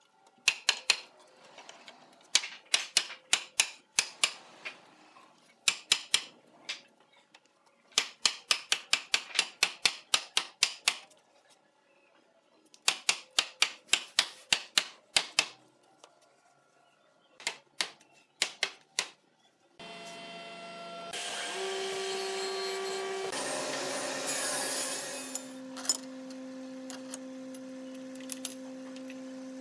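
Hammer tapping a hardwood table frame's joints together: quick runs of sharp knocks, several a second, with pauses between them. About two-thirds of the way in, a woodworking machine's motor starts, louder for a few seconds, then running steadily with a low hum.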